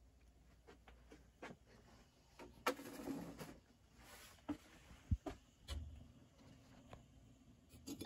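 Faint handling noise: scattered light clicks, taps and rubbing, with a brief rustle about three seconds in and a sharp click just after five seconds.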